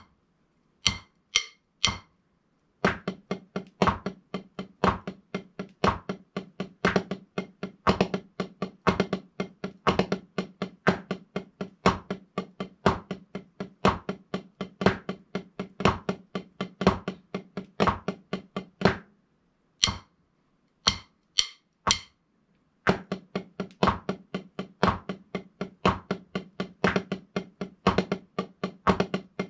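Drumsticks on a rubber practice pad playing a stick-control exercise of paradiddles, drag-a-diddles and flam-a-diddles at 60 BPM, about four strokes a second, over a metronome clicking once a second. The metronome clicks alone for the first three seconds. The strokes stop for about four seconds past the middle while the clicks carry on, and then the exercise starts again.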